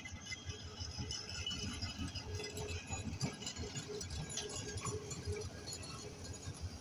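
Passenger train coaches rolling past on the track: a steady low rumble of wheels on rail with metallic rattling and clinking, and faint thin squeals from the running gear.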